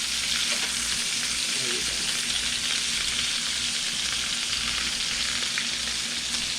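Bacon-wrapped hot dogs frying with a steady sizzle, with a faint low hum underneath.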